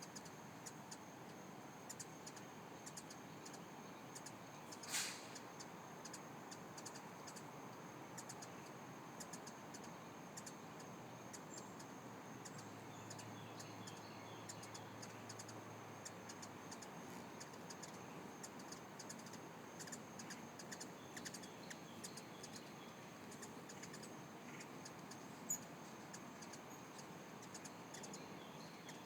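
Many hummingbirds chirping around feeders: a steady scatter of short, high chips, with a louder sharp chip about five seconds in and another near the end.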